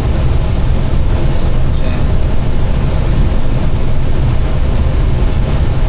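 Steady low rumble of airflow and engine noise inside an Airbus airliner's cockpit on final approach, between the automatic altitude callouts.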